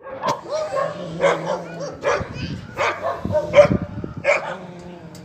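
A dog barking repeatedly, about six barks at a steady pace of a little under one a second.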